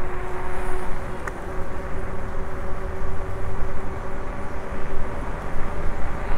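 Wind rumble on the microphone and tyre noise from an electric bike riding along a city street, with a steady whine from its electric motor underneath.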